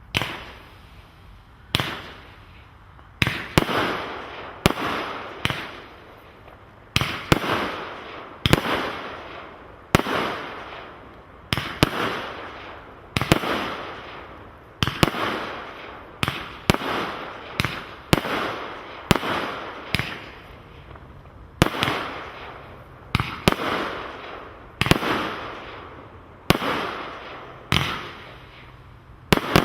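A firework display letting off shot after shot of loud bangs, about one every second or so and sometimes two in quick succession. Each bang is followed by a fizzing tail that fades over about a second.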